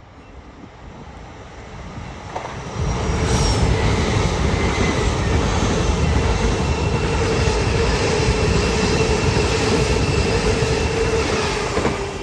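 LNER express train passing through the station: a rush of wheels and air that swells about two seconds in and stays loud for about nine seconds, with a steady whine running through it, then eases off near the end.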